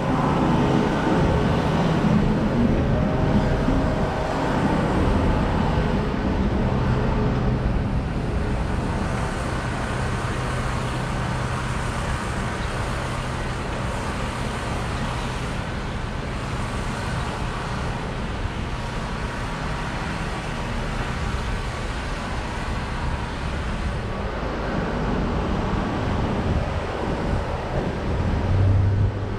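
Road traffic: a steady hum of vehicle engines and tyres, a little louder in the first seconds and again near the end.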